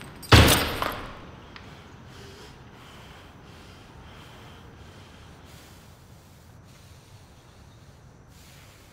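A child dropping onto a bed: a sudden loud rush of noise about half a second in that dies away over a second, then a quiet steady hiss.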